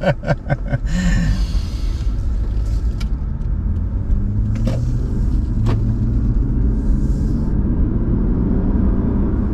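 Steady low rumble of a Toyota Crown Athlete's 3.5-litre V6 and road noise, heard inside the cabin while the car is driven, with a few faint clicks.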